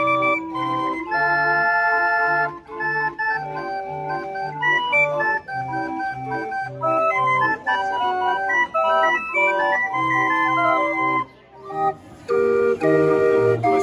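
Hand-cranked barrel organ playing a tune over a steady oom-pah bass. The tune stops about eleven seconds in, and after a short pause another barrel organ starts a different tune.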